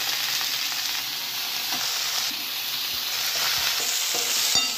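Raw chicken pieces sizzling in hot mustard oil with browned onions in a kadhai, stirred with a steel ladle that knocks against the pan a few times.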